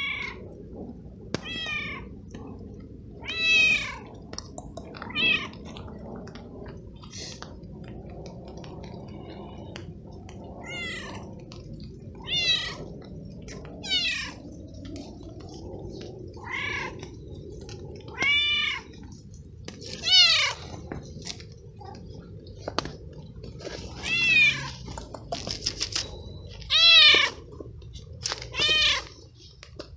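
Young tabby stray cat meowing over and over, about fourteen meows a second or two apart, each rising and falling in pitch.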